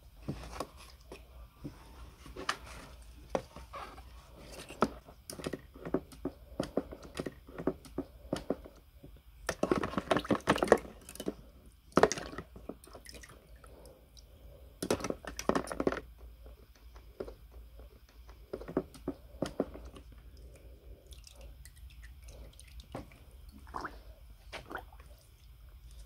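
Brass lamp burner parts dipped, swished and lifted out of a plastic bucket of liquid with wooden tongs: splashing and dripping with small clicks of metal and tongs against the bucket. It is loudest in two spells of sloshing about ten and fifteen seconds in.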